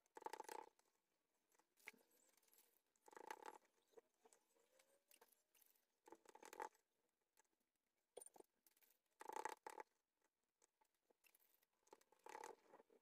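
Faint soft rubbing and tapping in five short bursts about three seconds apart: small pieces of kalburabastı dough being pressed into shape and set onto a baking tray.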